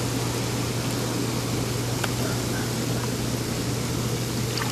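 Hot tub jets running: a steady rush of churning, bubbling water over a constant low hum, with a few small splashes near the end.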